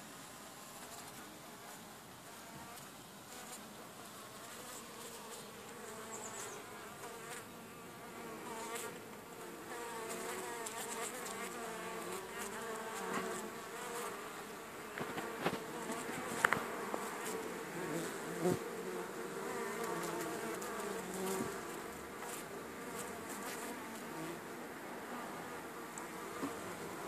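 Many honeybees buzzing in flight around a wooden hive entrance, a steady hum of wingbeats that grows louder about ten seconds in. A few short light ticks come through near the middle.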